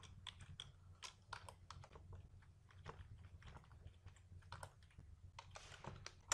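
Faint typing on a computer keyboard: irregular key clicks over a low steady hum.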